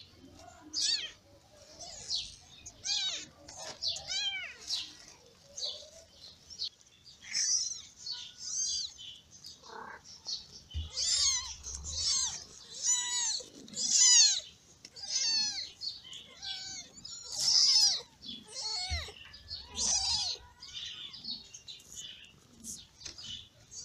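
Newborn kittens mewing: many short, high-pitched cries, one after another, sometimes overlapping.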